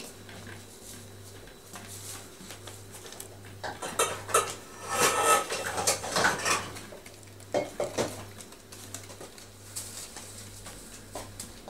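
Metal cat food bowls clinking and clattering on newspaper as kittens nose and paw at them, with a busy run of clatter in the middle.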